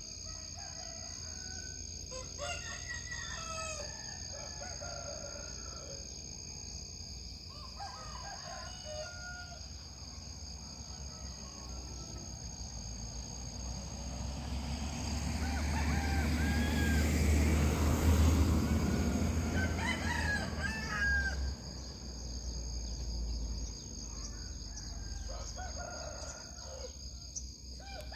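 Roosters crowing several times across the village, over a steady high whine. A low rumble swells and fades in the middle.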